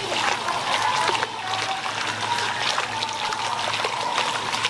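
Water trickling and splashing steadily into a pool as it runs off an artificial rock feature, with a faint steady hum underneath.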